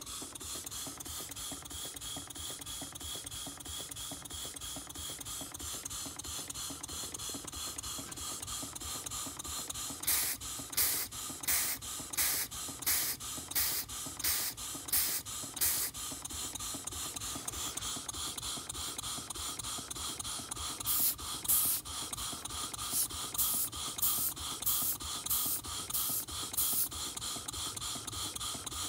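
Bolton No.7 model steam engine, a single double-acting cylinder driving a cast-iron flywheel, running on compressed air with a steady fast mechanical clatter. Twice, for about six seconds each, loud hissing puffs come nearly twice a second.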